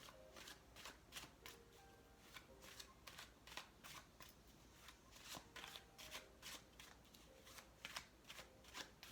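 A deck of tarot cards being shuffled by hand: a rapid, uneven run of soft card clicks.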